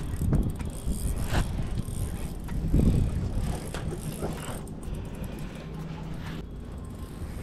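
Spinning reel's drag clicking as a hooked king salmon pulls line off it.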